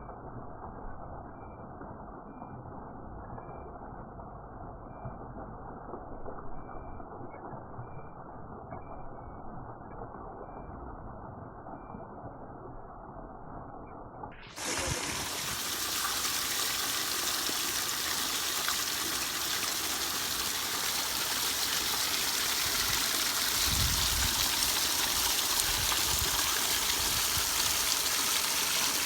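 Water flowing down a pondless waterfall, a steady rush. It is muffled and dull at first, then about halfway through changes suddenly to a full, bright rush.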